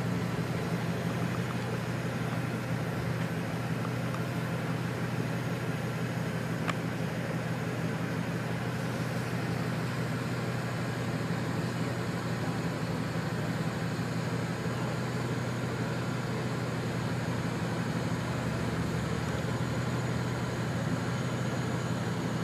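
Vehicle engine idling, a steady low hum that does not change.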